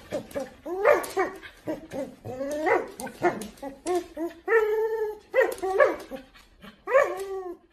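Husky making a string of short whining yowls and grumbles while tugging on a rope toy, with one longer held call about halfway through.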